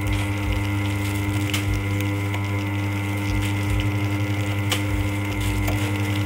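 Continuous band sealer running, its motor and drive giving a steady hum at several fixed pitches, with a couple of sharp clicks about a second and a half in and again near the end.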